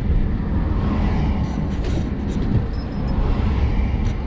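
Steady engine, tyre and road noise inside the cab of a 1987 Class A motorhome driving along a town street, with a few faint ticks in the middle.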